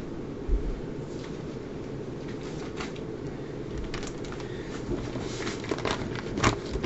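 Rummaging and handling noises as someone hunts for a paper booklet: a dull thump about half a second in, then scattered rustles and clicks that grow busier in the second half, over a steady low room hum.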